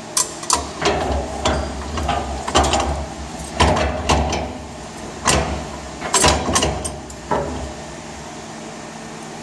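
Steel parts of a tractor's three-point hitch clinking and clanking as a pin is pulled and a lower lift arm is worked by hand: a series of sharp metal knocks over the first seven seconds or so, then quieter.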